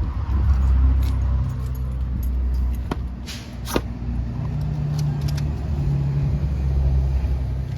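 Toyota 4Runner's engine running at idle, with keys jangling and a few sharp clicks about three to four seconds in.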